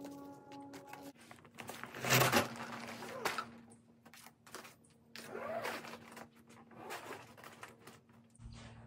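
Nylon cord rasping and a crinkly stuff sack rustling as a food bag is hoisted on a line over a rafter, in short irregular strokes, with the loudest rustle about two seconds in. A faint steady background tone runs under it.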